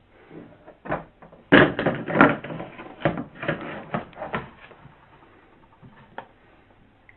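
Toys and objects being handled and knocked about: a quick run of clattering knocks and rattles, loudest in the first half, thinning to a few single knocks.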